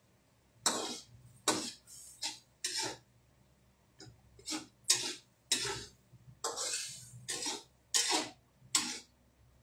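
Kitchen utensils and dishes being handled at a counter: about a dozen short, irregular scrapes and clatters.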